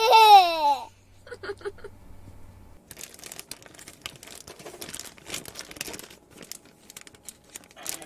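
A child's high voice rings out briefly at the start, the loudest sound. Then the crinkling and rustling of a packet of pumpkin pancake mix as the dry mix is poured out of it into a pot.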